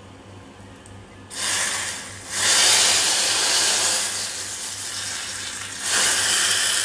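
Hot ghee tadka with dried red chillies and spices poured into simmering kadhi, sizzling loudly as it hits the curry. It starts about a second and a half in with a short burst, then comes back as a longer sizzle and swells again near the end as more is poured.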